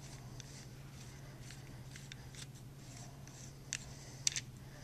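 Faint, scattered small metal clicks and scraping as the bolt plug is turned by hand off the back of an M60 machine gun bolt, with two sharper clicks near the end.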